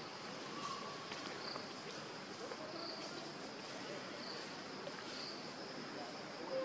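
Insects droning steadily, a high-pitched chorus that swells and fades every second or so, over a faint outdoor hiss.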